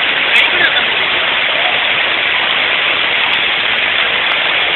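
Steady, loud rush of river water pouring through the open gates of a barrage, with no breaks.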